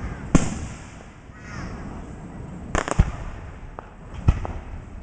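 Fireworks going off: a sharp bang near the start, a quick pair of bangs about three seconds in, and another a little after four seconds, with fainter cracks in between.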